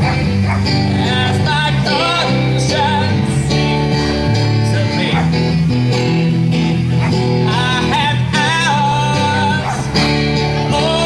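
Live amateur rock band playing a song: electric bass, acoustic guitar and drums, with a wavering sung or lead melody over them.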